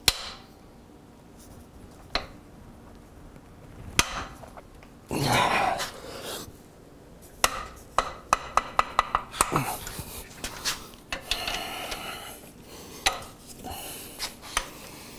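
Hand tools knocking and clicking on a motorcycle's rear suspension linkage bolts as the linkage-arm nuts are worked to break them loose: separate sharp knocks, a scraping rustle about five seconds in, then a quick run of clicks about eight to nine seconds in.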